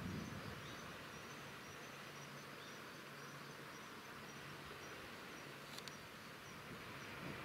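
Faint outdoor ambience: a steady hiss with a faint, regular insect chirping high in pitch and a low steady hum. A couple of sharp clicks come near the end.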